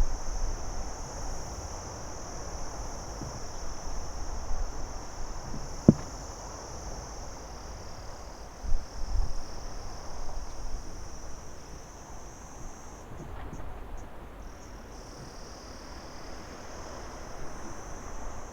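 Crickets chirping in a steady, continuous high-pitched chorus that breaks up briefly for a moment about two-thirds of the way through. A low rumble sits underneath, and there is one sharp click about six seconds in.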